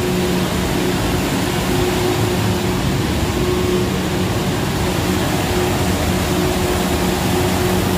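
Factory machinery running: a loud, steady mechanical drone with a constant low hum.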